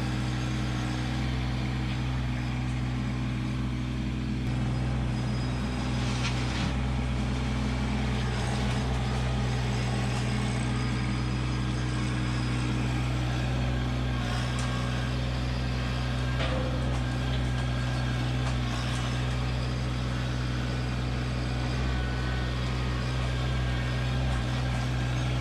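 Kubota LX2610 compact tractor's three-cylinder diesel engine running steadily while its front loader works gravel. A few short knocks of the bucket and loader break through, about six, fourteen and sixteen seconds in.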